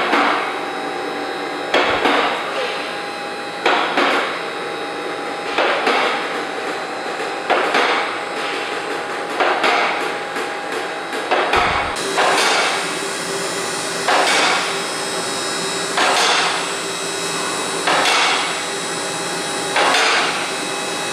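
Hunter scissor lift raising a car: a steady hum from the lift's drive, with a sharp metallic clack about every two seconds as the lift rises through its lock positions.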